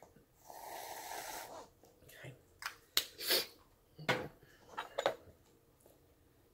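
An aerosol can of whipped topping hisses steadily for about a second as it sprays. Several sharp clicks and knocks follow as a metal spoon works in a paper ice cream cup.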